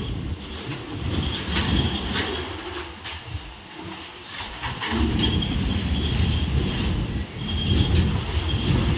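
Covered BCACBM car-carrier wagons rolling past: a steady low rumble of steel wheels on rail, with clicks as the wheels cross rail joints and short faint wheel squeals a few times.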